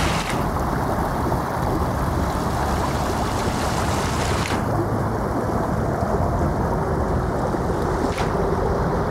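Muddy floodwater rushing down a swollen wadi, a steady loud rush of turbulent water.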